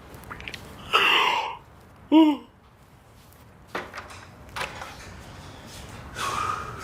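A man's exaggerated comic snoring: a loud rasping snore about a second in, then a short note that rises and falls in pitch, and a weaker snore near the end.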